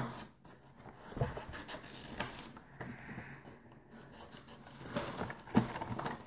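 Sheets of folded paper being handled and rustled, with a few light knocks against the tabletop, about a second in and again near the end.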